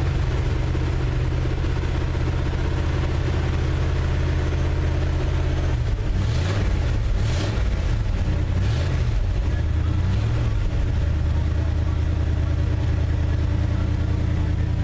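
1974 Ford F250's 390 cubic-inch V8 idling steadily after its first start in twenty years. About six seconds in, the engine note rises and falls a few times as it is revved, then it settles back to idle.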